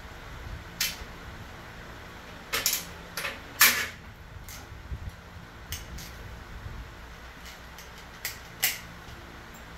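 About ten sharp clicks and knocks at irregular intervals, the loudest about three and a half seconds in, over a faint steady hum.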